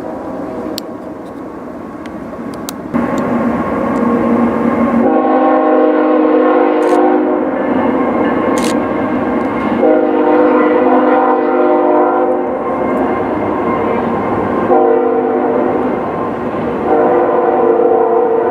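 Locomotive's Nathan Airchime multi-chime air horn sounding a chord in long blasts, starting about five seconds in, with two more blasts near the end. Under it runs the steady rumble of the train.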